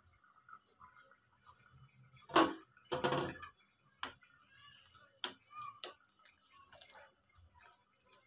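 A glass lid lifted off an aluminium cooking pot with two loud knocks a little after two and three seconds in, then a wooden spoon stirring thick dal, tapping lightly against the pot now and then.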